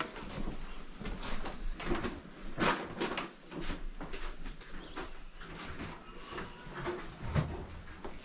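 Scattered knocks, clicks and rustles of household items being handled and shifted about, coming irregularly with no steady sound underneath.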